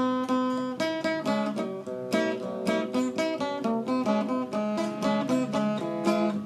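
Solo acoustic guitar playing the instrumental introduction to a song: a steady rhythm of strummed and plucked chords.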